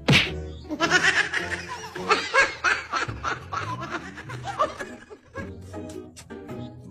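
Laughter over background music, strongest in the first couple of seconds and fading toward the end.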